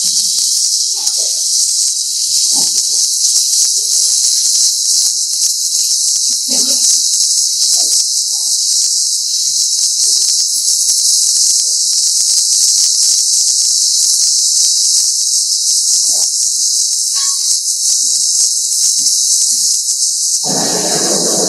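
Oxy-fuel gas-welding torch flame hissing steadily, with a continual crackle of sparks and spatter as filler rod is melted into the weld pool of a steel butt joint. A louder, lower sound comes in about a second before the end.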